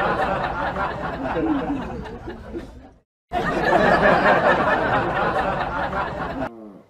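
Several people laughing and chattering together, cutting off abruptly about three seconds in and starting again a moment later, then fading near the end.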